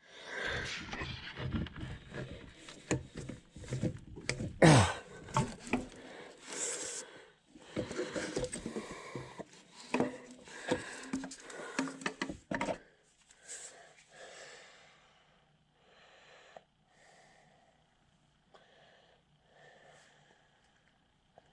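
Irregular clatter, knocks and rustling of things being handled, with one louder knock about five seconds in. About two-thirds of the way through it stops abruptly, leaving only faint scattered ticks.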